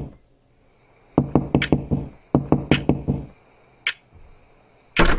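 Rapid knocking on a door in two bursts of five or six quick knocks, then a single louder bang near the end.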